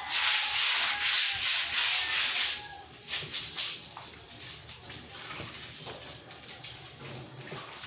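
Stiff stick broom scrubbing across a wet tiled floor: loud, scratchy sweeping strokes for the first two and a half seconds, two short strokes a little after three seconds, then quieter.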